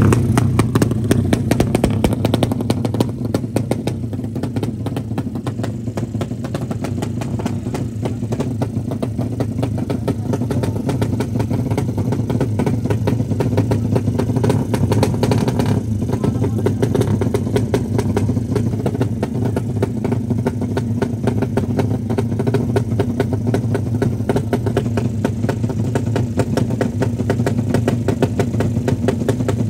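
Suzuki Satria FU drag-racing motorcycle engine running steadily, a little louder in the first couple of seconds.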